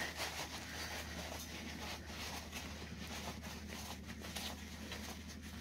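Quiet room tone: a low steady hum with a few faint clicks and rustles.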